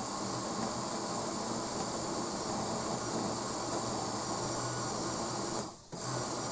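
Electric blender running steadily under load, pureeing thick crushed figs with a little water. It cuts out for a moment near the end, then starts again.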